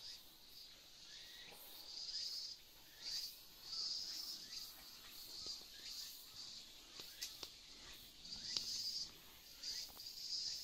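Cicadas calling in repeated buzzy bursts that swell and fade every second or two, with a few faint clicks.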